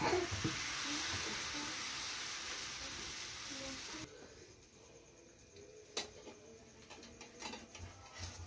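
Rice batter for chokal pitha sizzling in a small pan over a wood fire, a steady hiss that cuts off suddenly about four seconds in. After that it is faint, with one sharp knock about six seconds in and a few light clicks.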